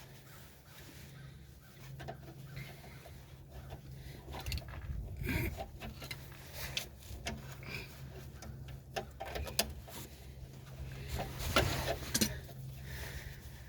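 Scattered metallic clicks and knocks of drum brake parts being handled and worked into place by hand, over a steady low hum.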